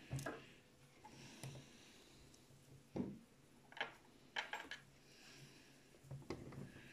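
Light clicks and taps of small RC tank parts being handled and set down on a tabletop, a few scattered knocks with short gaps of quiet between them.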